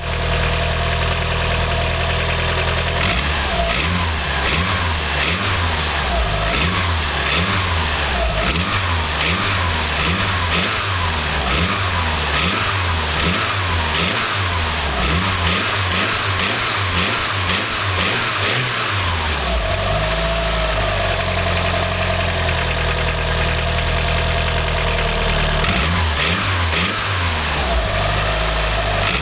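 Mitsubishi Mivec 4G63 2.3-litre engine idling, then revved again and again in quick blips, settling back to idle and revved once more near the end. Under it runs a knocking noise like piston slap, whose cause the owner never found.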